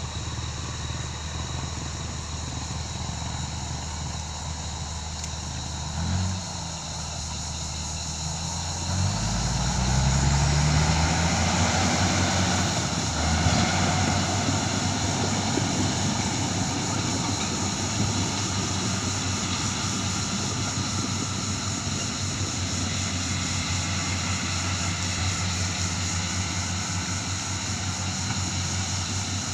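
Excavator diesel engine running steadily, revving up briefly about six seconds in and again more strongly around nine seconds in, staying louder for a few seconds before easing back to a steady run.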